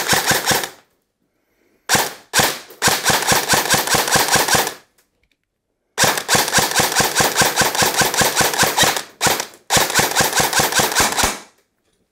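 ICS CXP-UK1 MTR airsoft electric rifle firing semi-automatic in rapid strings of single shots, about six a second, with short breaks between strings. The shots follow the trigger crisply even though the gun has no electronic trigger unit.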